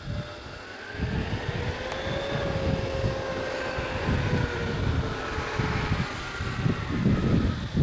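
A vehicle's engine running steadily, its pitch rising slightly and then easing back, over an irregular low rumble that grows loudest near the end.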